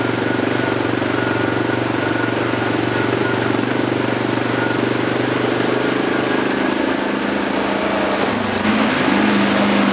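ATV engine running steadily as the quad drives along a muddy trail, its note shifting to a new steady pitch near the end.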